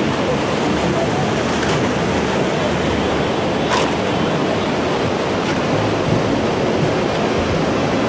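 Tsunami surge: a loud, steady rush of churning floodwater pouring over a seawall and through the streets.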